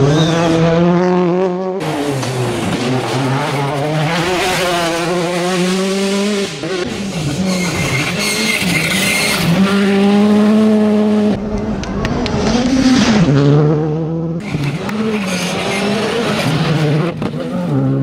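A run of rally cars driven flat out on a gravel stage, their engines revving hard and dropping repeatedly with gear changes and lifts, with tyres scrabbling and throwing gravel. The sound jumps abruptly every few seconds as it cuts from one car passing to the next.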